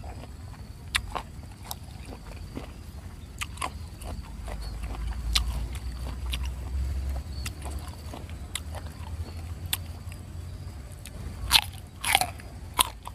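Crunchy bites into a piece of raw fruit coated in rujak sambal, with scattered light clicks and then a few loud crunches near the end.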